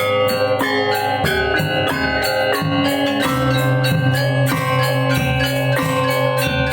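Balinese gamelan ensemble playing: bronze metallophones strike rapid, ringing notes over deeper sustained gong and metallophone tones, with drum strokes underneath.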